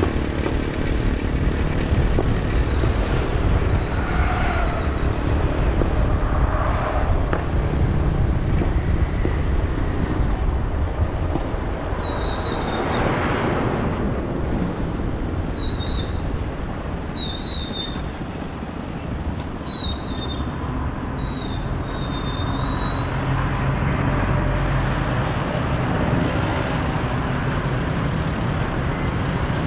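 Steady road and traffic noise from driving through city streets: a continuous low rumble of engines and tyres that swells briefly about a third of the way in. Short high chirps repeat through the middle stretch.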